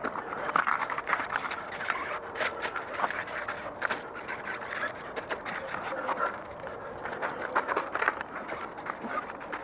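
Sponge scrubbing a bicycle wheel's tyre and rim: a continuous run of rubbing strokes with a few sharp clicks.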